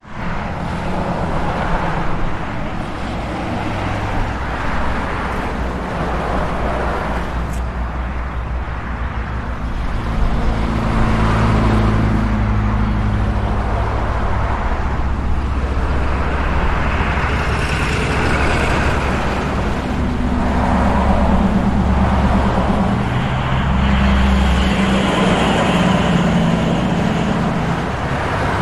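City street traffic: cars, with buses or trucks among them, running and passing continuously in a steady mix of engine rumble and tyre noise.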